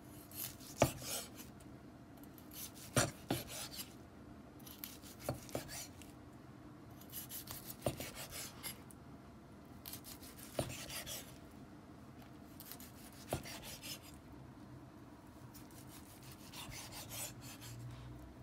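Large chef's knife slicing through a seared steak on a wooden cutting board: rasping strokes as the blade draws through the crust, each slice ending in a sharp knock of the blade on the board, about every two to three seconds.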